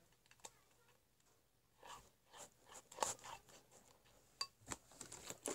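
Faint, irregular little clicks and squishes of hands working sticky, gluey homemade slime, starting about two seconds in.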